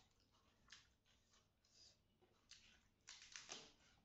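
Faint eating sounds from a meal eaten by hand: a string of short, wet mouth smacks and rustles, with a louder cluster about three seconds in.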